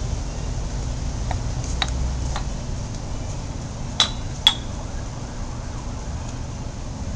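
Steady low rumble of city street traffic, with a few light clicks and then two sharp clinks half a second apart about four seconds in.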